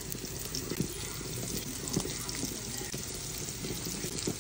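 Rava-coated shrimp and kingfish steaks shallow-frying in hot oil in a pan: a steady sizzle with a few sharper pops.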